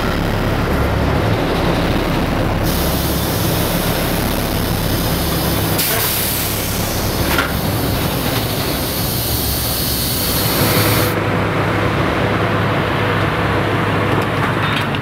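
Compressed air hissing loudly out of the steam locomotive No. 765, whose boiler is charged with air instead of steam, as the cab controls are worked; the hiss starts a few seconds in, swells in the middle and cuts off near the end. Under it runs a steady low engine drone.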